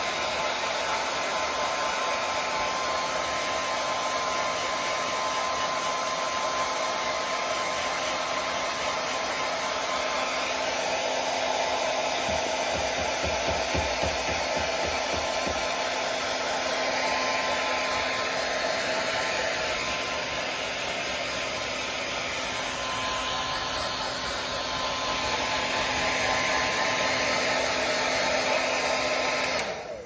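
Hand-held hair dryer blowing on its fan setting with no heat: a steady rush of air with a faint constant whine. It cuts off abruptly at the very end.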